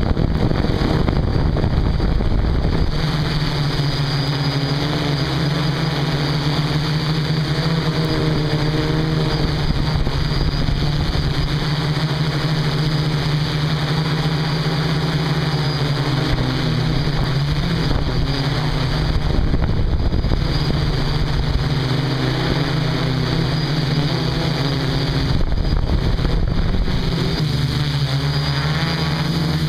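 DJI F450 quadcopter's four brushless motors and propellers humming steadily, recorded from the camera on its frame, with wind noise on the microphone.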